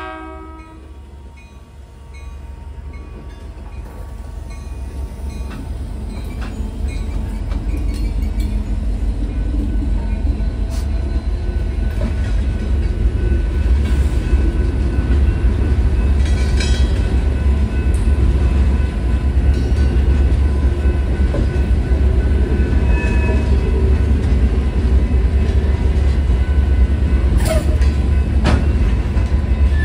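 Union Pacific diesel freight locomotives rumbling past at a road crossing, followed by the steady rolling rumble and clatter of loaded freight cars, getting louder over the first several seconds. The crossing's electronic bell keeps ringing faintly, and a short falling squeal comes near the end.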